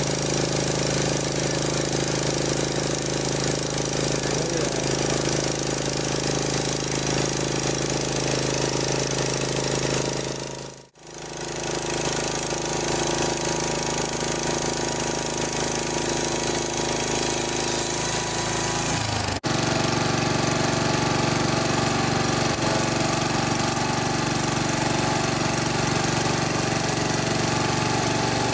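Portable band sawmill running steadily with its engine going while it saws a sinker cypress log. The sound drops out for an instant about ten seconds in and changes tone about two-thirds of the way through.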